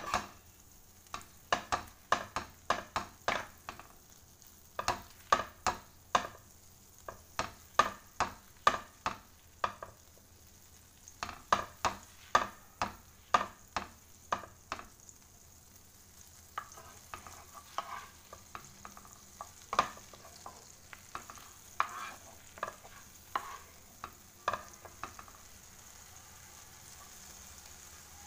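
Wooden spatula scraping and knocking against a nonstick wok as a block of butter is pushed around to melt. There are quick strokes, two or three a second, that thin out after about fifteen seconds and stop near the end. Meanwhile a faint, steady sizzle of the foaming butter grows.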